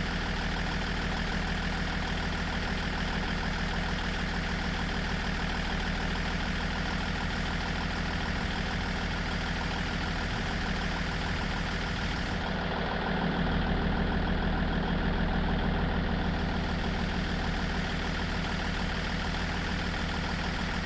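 Diesel truck engine idling steadily, getting briefly louder and deeper for a few seconds past the middle before settling back.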